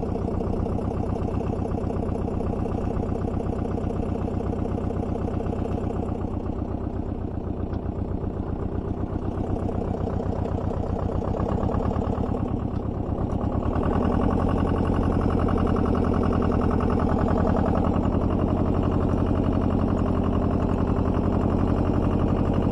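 Small tractor's engine running steadily while pulling a subsoiler through the soil. About 13 seconds in it gets louder and fuller, then holds at that level.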